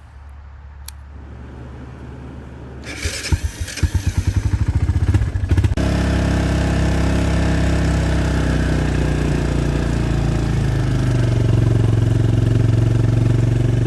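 Pickup truck engine cranked by the starter for a few seconds, catching about six seconds in and then running steadily, picking up a little near the end.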